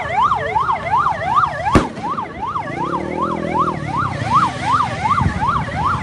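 Siren wailing in a fast yelp, its pitch sweeping up and down about three times a second, with a single sharp bang a little under two seconds in.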